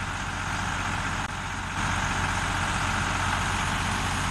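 Heavy truck's diesel engine idling steadily, a low even rumble that grows a little louder about two seconds in.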